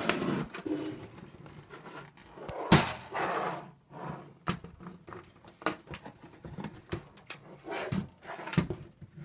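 A box fan being handled and turned around on a table: scattered knocks, clicks and scraping, with one loud thunk a little under three seconds in.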